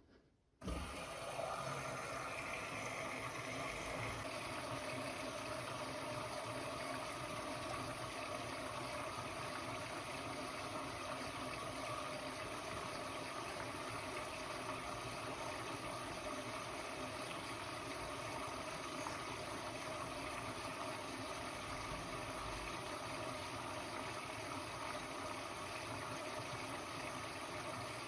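Blomberg WA391 washing machine taking in water at the start of a 90 °C boil-wash cycle: the inlet valve opens under a second in and water rushes steadily into the machine.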